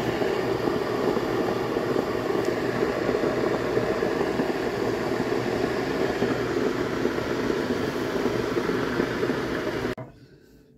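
A steady machine whir that cuts off suddenly near the end.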